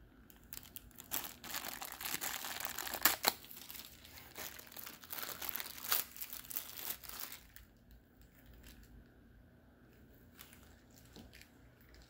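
Plastic bag around a USB cable crinkling as it is handled and unwrapped, a dense crackle for about seven seconds that stops about two-thirds of the way in, followed by a few faint handling clicks.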